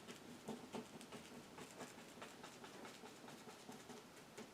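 Faint, irregular soft taps of a paint-loaded bristle brush dabbed onto canvas, about two to three a second, stippling texture for grass.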